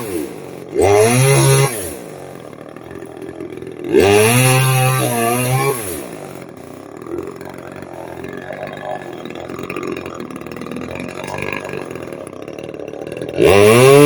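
Gas chainsaw idling and revved in three short bursts: about a second in, again around four seconds in for about two seconds, and once more near the end. Each time the pitch climbs, holds, then drops back to idle.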